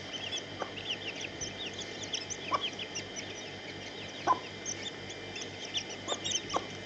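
Brood of chicks peeping nonstop in quick high chirps while they feed, with a handful of short, lower clucks from the mother hen spaced a second or two apart.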